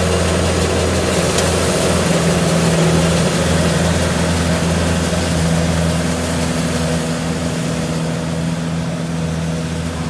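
Diesel engine of heavy farm machinery running steadily at a constant speed, easing a little quieter over the last few seconds.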